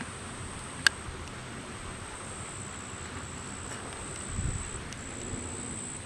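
Steady high-pitched buzz of insects in tall summer grass over a faint outdoor hiss. A single sharp click about a second in, and a brief low rumble a little past the middle.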